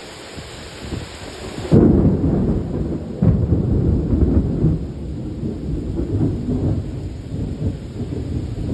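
Steady heavy rain, then a loud crack of thunder about two seconds in that breaks into a long low rumble, swelling again a second later and rolling on through the rest.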